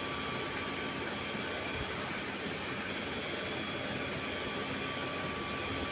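Steady background hiss and hum, even throughout, with a faint steady tone and no distinct events.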